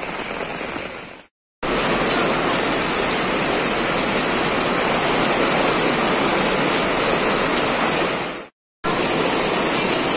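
Heavy rain pouring steadily onto a flooded street and pavement, a loud even wash of water noise. It cuts out abruptly twice for a fraction of a second, about a second and a half in and near the end.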